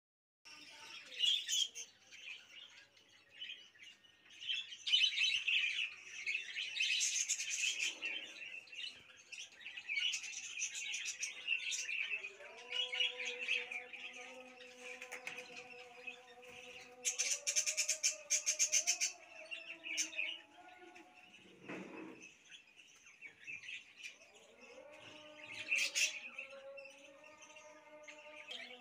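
A flock of caged budgerigars chirping and chattering, with a burst of rapid warbling trills about two-thirds of the way through.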